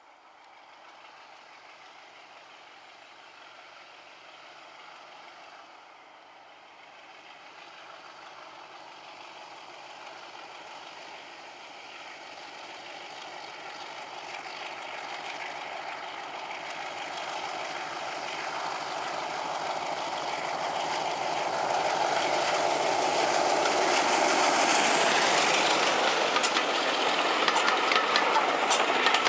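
Class 33 diesel locomotive running, its engine growing steadily louder as it approaches and passes. In the last few seconds the wheels of the passing coaches click over the rail joints.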